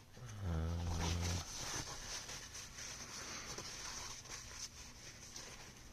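A low, drawn-out groan of frustration lasting about a second, followed by rustling and small scattered clicks of things being moved about on a work surface while someone searches for a dropped small part.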